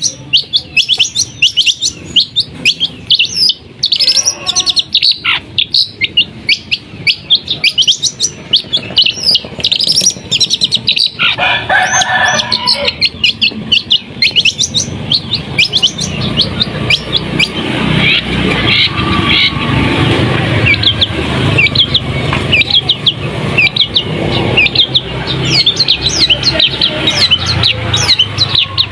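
Caged long-tailed shrike (pentet) singing its rapid 'tembakan' song: quick, sharp, high chirps repeated several times a second. From about halfway through, a low rumble runs underneath.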